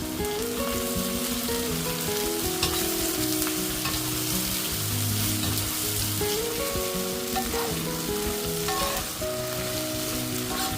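Food sizzling in oil in a frying pan over high heat, with a few clicks of stirring, under soft background music with held notes.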